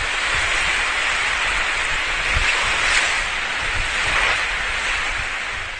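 A steady rushing noise with an uneven low rumble underneath, cutting off abruptly near the end.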